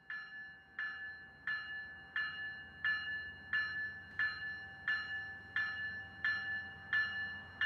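Railroad grade-crossing warning bell ringing in steady, evenly spaced strokes, about one and a half a second, each stroke ringing on briefly: the crossing signal is active for an approaching train.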